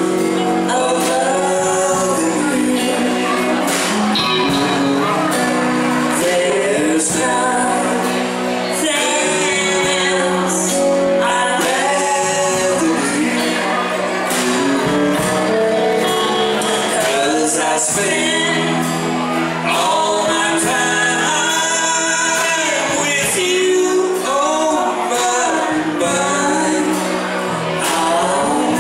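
Slow country song played live by a small band: a woman singing lead over strummed acoustic guitar, electric guitar and drums.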